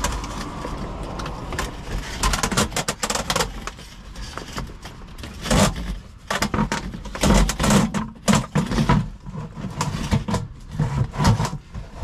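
Irregular knocks, scrapes and rattles of a plastic sump pit lid being handled and fitted onto the pit, with the corrugated hose being worked through its hole.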